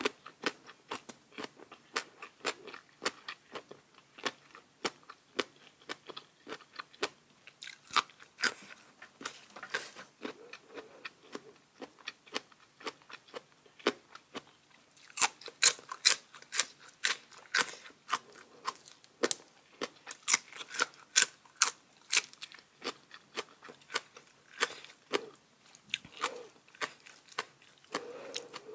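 A person chewing crunchy food close to the microphone: a steady run of crisp crunches and mouth clicks, denser and louder from about halfway through.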